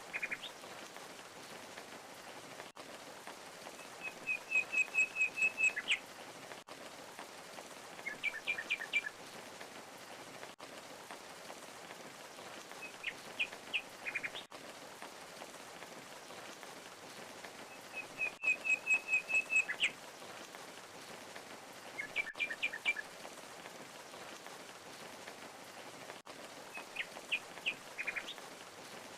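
Steady rush of falling water from a waterfall, with a small songbird singing short phrases of quick, high chirps every few seconds. The same few phrases come round again about every fourteen seconds.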